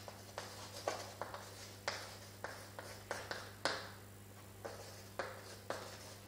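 Chalk writing on a blackboard: a string of short, irregular taps and scratches as the letters are formed, about two a second.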